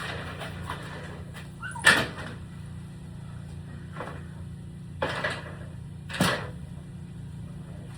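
Four sharp knocks and clunks of tools and parts being handled and set down, about two seconds in, then around four, five and six seconds in, the first the loudest, over a steady low hum.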